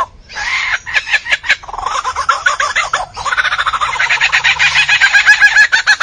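Lyrebird mimicking other sounds. It gives a rapid string of varied notes with a few sharp clicks about a second in, then from about three seconds in a dense, fast rattling run of notes that rises in pitch.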